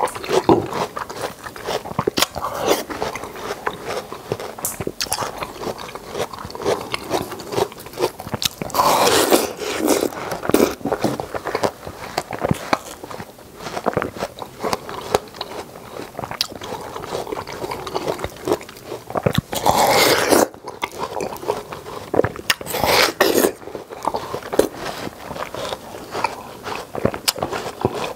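Close-miked eating: crisp bites and wet chewing with a steady crackle of small clicks, and a few louder bites along the way.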